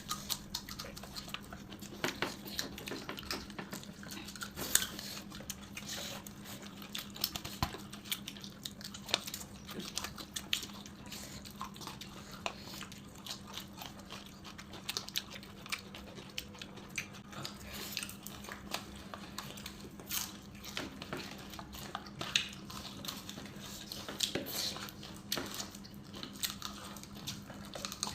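Close-up eating sounds: chewing with frequent small, irregular clicks and clinks of a plate and utensils, over a steady low hum.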